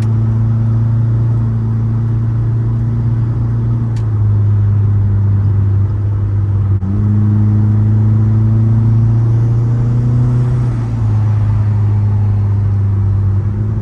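Mitsubishi Eclipse GSX's turbocharged four-cylinder engine running with a steady, loud drone. Its pitch drops briefly about seven seconds in, rises again, and shifts once more near the end.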